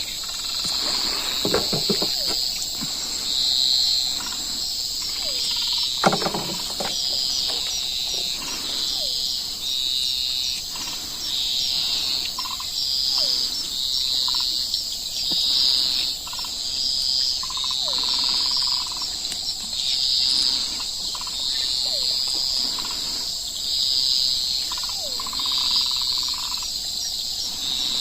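Crickets and other insects calling: a steady high buzz with bright chirps repeating about once a second, plus a few short falling calls lower down and a couple of knocks in the first few seconds.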